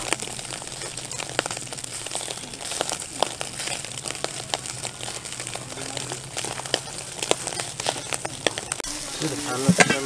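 Food frying in hot fat: a steady sizzle with many small crackles and pops.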